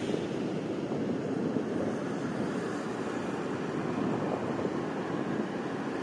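Pacific surf washing and breaking on a sandy beach, a steady rushing noise with no distinct events.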